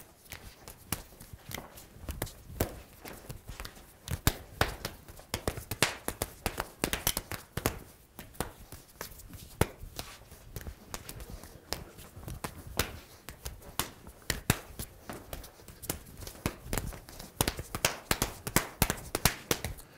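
Rapid, irregular slaps and taps of hands and forearms striking, parrying and checking in a fast two-person knife flow drill, with shoes shuffling on the floor.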